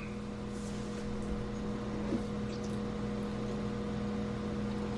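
Steady low electrical hum with a light hiss: room tone during a pause in speech.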